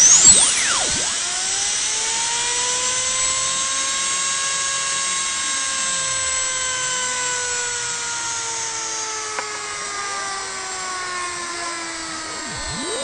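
Small homemade air-driven turbine generator spinning at high speed with a loud whine over a hiss of air. Its pitch shoots up at the start, then slowly sinks, and climbs again near the end.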